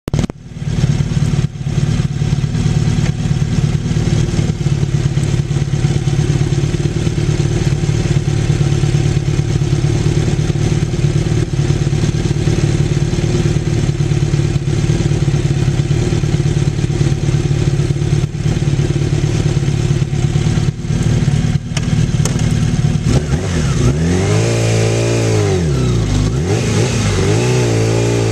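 Honda CBR1000F Hurricane's inline-four engine idling steadily. A little over 23 seconds in, the throttle is blipped and the revs rise and fall about three times.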